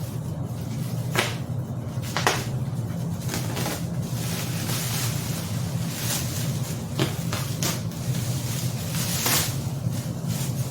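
A few sharp clicks and knocks of bicycle parts being handled during a wheel swap, over a steady low hum.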